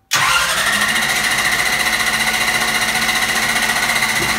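Starter cranking the turbocharged methanol pulling-tractor engine over without it firing, to build oil pressure. A steady, fast mechanical chatter with a whine over it starts abruptly and stops near the end.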